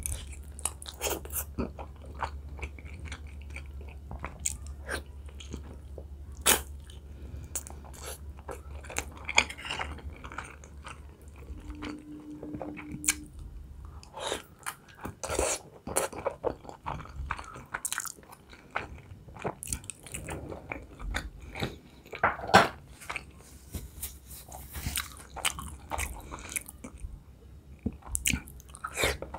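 Close-miked chewing of beef khinkali dumplings with sauce: wet, irregular smacks, squelches and mouth clicks. Near the end a bite into a fresh tomato wedge. A low steady hum underneath stops about twelve seconds in.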